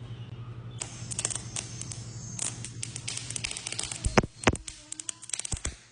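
Arc welding: the arc crackles and spits irregularly over a steady hum from the welder, which stops about three and a half seconds in, followed by several louder pops. The uneven sputtering goes with an erratic arc laying a messy bead.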